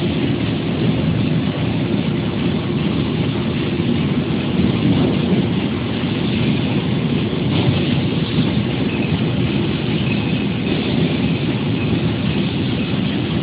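Steady, loud machine noise of a Yaskawa robot-arm fiber laser cutter trimming a stamped sheet-metal car door panel: a continuous rushing hiss over a low rumble, with no strokes or pauses.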